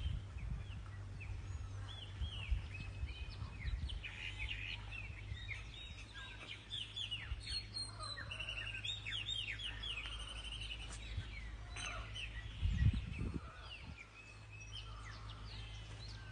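Birds chirping in many quick falling chirps, busiest through the middle, over a steady low rumble. A brief low bump about thirteen seconds in.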